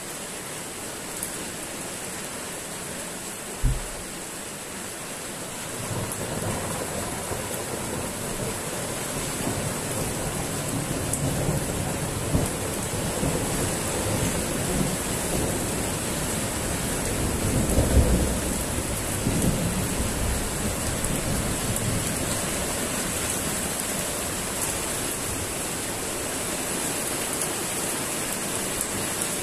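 Heavy rain falling steadily in a thunderstorm, with a long roll of thunder that builds from about six seconds in, is loudest a little past the middle, then dies away. A short low thump comes about four seconds in.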